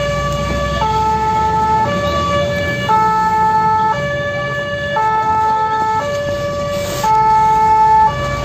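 Fire engine's two-tone siren alternating between a higher and a lower note, each held about a second, heard from inside the cab with the truck's engine running underneath.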